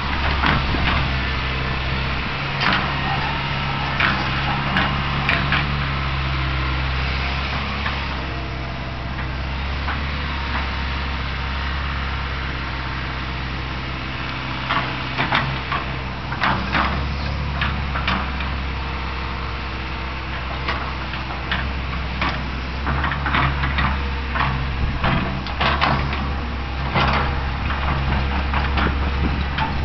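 Fiat-Hitachi EX135 excavator's diesel engine running steadily while it works, with bursts of clanks and knocks from the machine. The clanks come in the first few seconds, again about 15 to 18 seconds in, and through the last several seconds.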